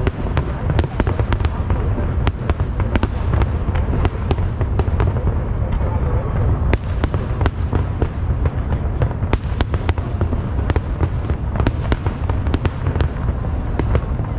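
Aerial fireworks display: a constant low rumble of booming shells under a rapid, irregular barrage of sharp bangs and crackles.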